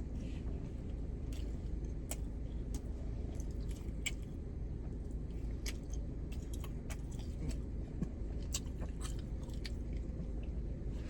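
A person chewing and biting food close to the microphone: irregular small wet mouth clicks throughout, over a steady low hum.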